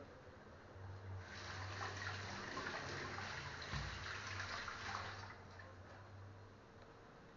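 Kitchen sink tap running, with hands rinsing under the stream. It comes on suddenly about a second in and shuts off about four seconds later, with a dull knock partway through.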